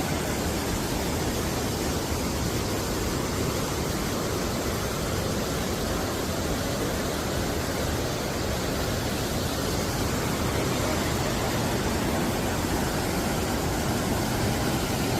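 Waterfall rushing: a steady, even roar of falling water with no break or change.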